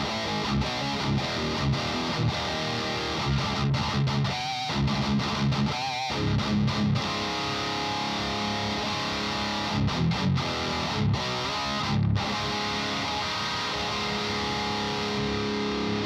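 High-gain distorted electric guitar played through an 808-style Grim 3 overdrive pedal into a Mesa Boogie Rectoverb 50 tube amp: tight palm-muted chugging riffs broken by short stops, with chords left ringing in the middle and near the end.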